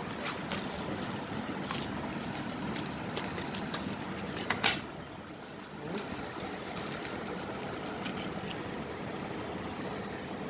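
Steady background noise with scattered light clicks and one sharp knock about four and a half seconds in.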